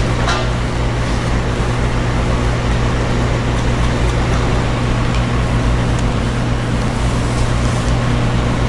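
A steady hiss over a low hum, with no distinct sound standing out.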